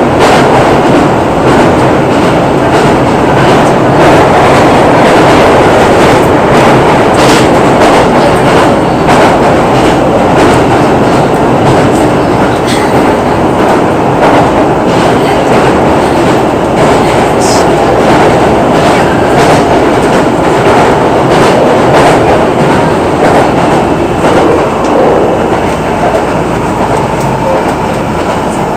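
Running noise heard inside a Hankyu 9000 series electric train car in motion: a steady loud rumble of wheels on rail, with frequent irregular clicks and clacks from rail joints and points.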